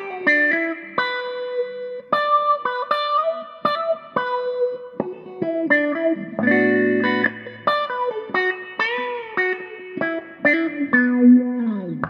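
Electric guitar played through a handmade auto-wah/envelope filter pedal, picking single notes with the filter sweeping on them. A held chord comes about six and a half seconds in, and near the end a note slides down in pitch.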